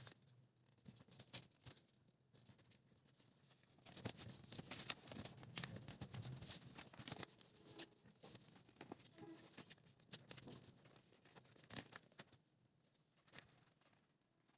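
Faint handling sounds of small craft materials at a desk: scattered light taps, scrapes and rustles, busier from about four seconds in.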